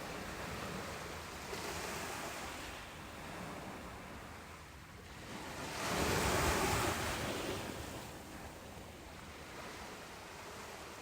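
Ocean waves washing onto a shore, rising and falling, with one larger wave swelling about six seconds in.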